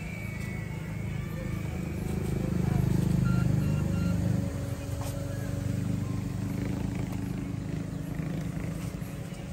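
A motor vehicle's engine rumbling, louder about two to four seconds in and then easing off.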